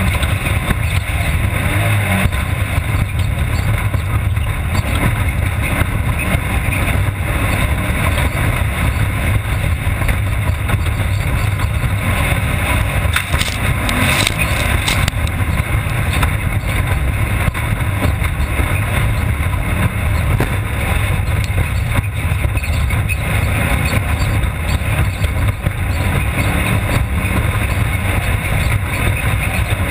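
Off-road race car driving at speed, heard from its onboard camera: a steady, loud engine drone mixed with dense rattling and rushing noise, with a few sharp knocks about halfway through.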